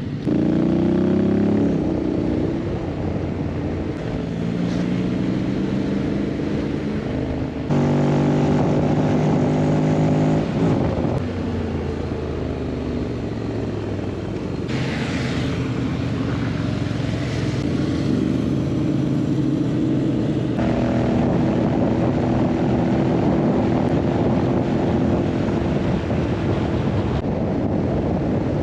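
Honda X-ADV 750's parallel-twin engine running under way, rising in pitch as it accelerates near the start and again about eight seconds in, with road and wind noise. The sound changes abruptly a few times.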